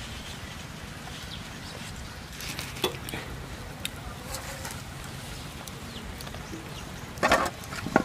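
Banana leaves being handled and okra set down on a metal charcoal-grill grate, with a short knock near the end followed by a sharp click. Faint bird chirps sound in the background.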